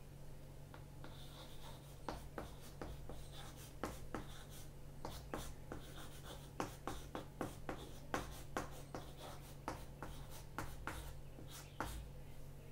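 Chalk writing on a chalkboard: a quick run of short taps and scratches as words are written out, over a steady low hum.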